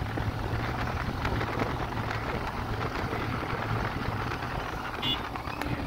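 Royal Enfield Super Meteor 650's parallel-twin engine running steadily at cruising speed, with a steady rush of wind on the microphone.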